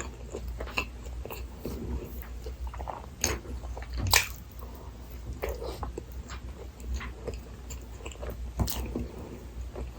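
Close-miked eating sounds of a Burger King Whopper-set meal: wet chewing with irregular small mouth clicks. The two loudest bites or crunches come about four seconds in and again near nine seconds.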